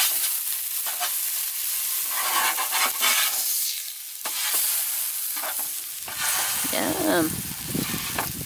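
Hamburger patty sizzling on a perforated metal grill pan over charcoal, with a metal spatula scraping under it, lifting and turning it, and pressing it down against the pan.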